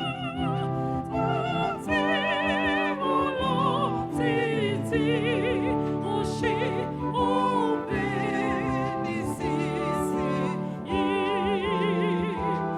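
Church music: singing with heavy vibrato over sustained instrumental chords, phrases changing every second or two.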